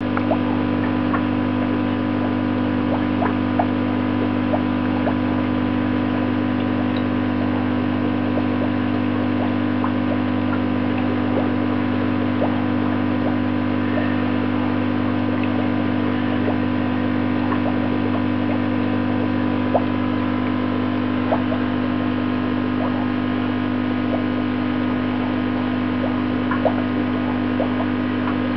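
Steady low electrical hum, with faint irregular ticks scattered through it.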